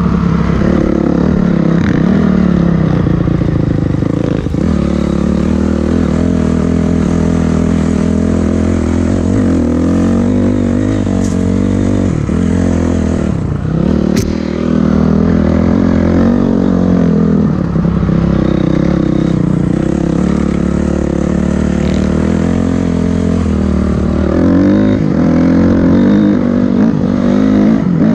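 Dirt bike engine running under load on a rough dirt trail, the pitch rising and falling as the throttle is opened and rolled off, with a brief drop about halfway through.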